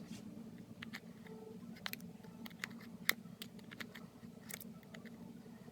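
Scattered faint clicks and ticks of a plastic opening tool prying an iPhone 8 Plus screen away from its frame, the sharpest about three seconds in, over a low steady hum.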